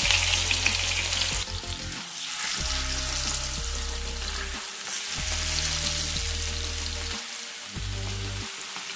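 Chilli-marinated modha fish pieces frying in hot oil in a non-stick pan: a steady sizzle, loudest and brightest for the first second and a half after a piece goes in, then settling.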